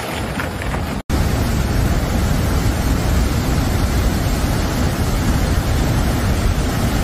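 Floodwater rushing. First a swollen river churns under a bridge; after a brief dropout about a second in, it gives way to a louder, steady rush of water pouring through a dam.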